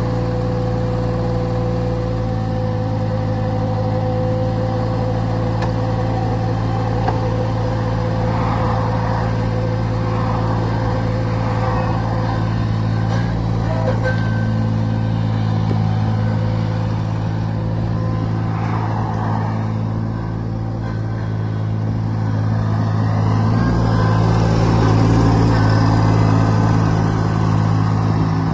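Diesel engine of a McCormick G30R compact tractor running steadily, getting louder for the last few seconds as the tractor drives off.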